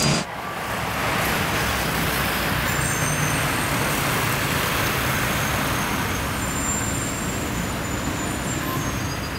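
Steady road traffic noise of cars passing on a city street.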